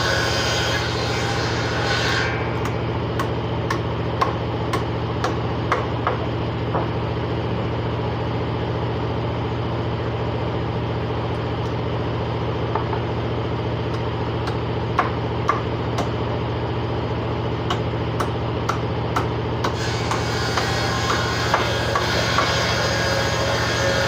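A motor runs steadily with a low hum while wood is worked, with scattered sharp knocks and taps through the middle and a brighter hiss over the hum near the start and again near the end.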